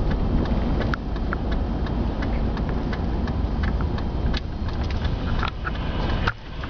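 Steady low rumble of a moving vehicle heard from inside the cabin, with frequent light ticks and clicks over it; the rumble dips sharply for a moment near the end.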